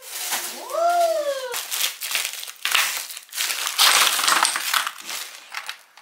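Plastic food-storage containers and a zip-top freezer bag being handled on a kitchen counter as frozen baby-food cubes are packed away: crinkling, clicking and rattling of plastic. In the first second and a half there is a short squeak that rises and then falls.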